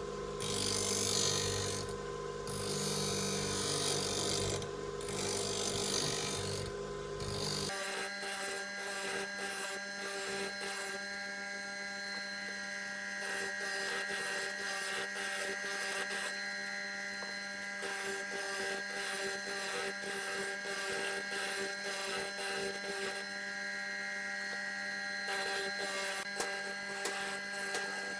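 Electric bench grinder running while the bevel of a steel cold chisel is ground against its wheel, the grinding hiss coming and going as the blade is worked across it. About eight seconds in the sound changes abruptly to a steadier motor hum with lighter grinding.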